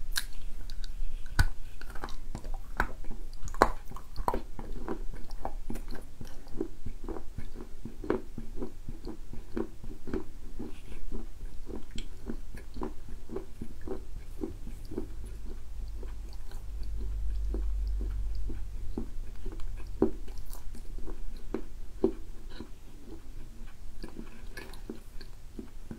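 Close-up chewing of a moist, dark piece of edible clay: repeated soft bites and chews, each a short crunch.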